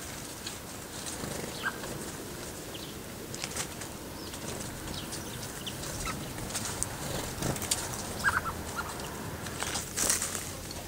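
Wingbeats and small clicks of garden birds coming and going at a water basin, with a louder flutter about ten seconds in as a Eurasian blackbird lands on the rim close by. A few short chirps, including a quick run of three about three-quarters through.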